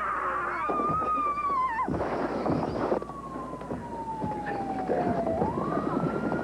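Emergency vehicle siren wailing: one long tone that slides slowly down, then swings quickly back up a little after five seconds in and holds high. Noisy scuffling and commotion lies underneath.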